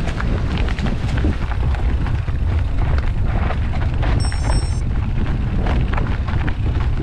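Wind rumbling on the microphone of an action camera on a moving mountain bike, over the rattling knocks of the bike's tyres, chain and frame on a rocky trail descent.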